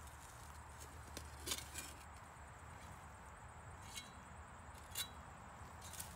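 Scattered clicks and clinks of a hand digging tool striking stones and roots in the dirt, about six sharp little hits, a couple with a brief metallic ring.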